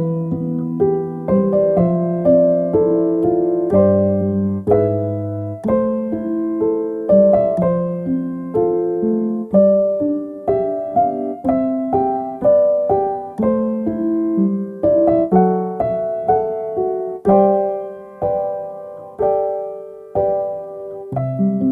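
Gentle solo piano music, single notes and soft chords struck and left to ring away, with a brief pause just before the end.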